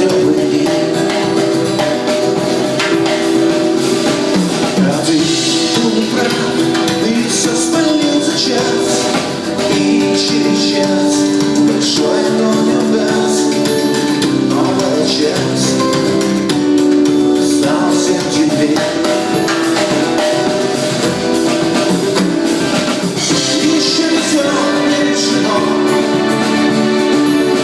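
Live rock band playing a song, with singing over guitar and drums.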